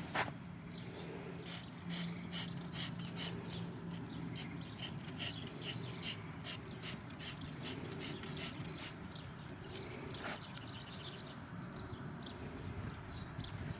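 A Morgan filly's small hooves during a hoof trim: irregular sharp clicks and scrapes, roughly three a second, thinning out about ten seconds in.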